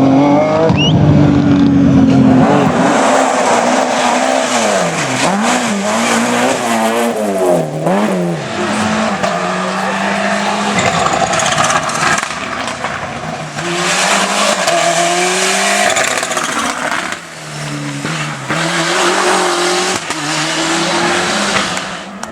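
Rally car engine at full effort, its pitch rising and falling again and again as the driver changes gear and lifts off and back onto the throttle, over a broad rushing noise.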